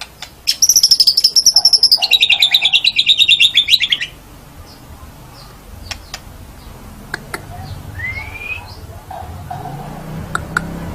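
White-rumped shama (murai batu) singing: a loud, very rapid trill that starts about half a second in, drops to a lower pitch about two seconds in and stops about four seconds in. After it come softer scattered clicks and a short rising whistle.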